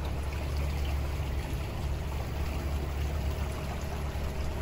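Homemade river boat under way: a steady low motor hum with water rushing and washing along the hull.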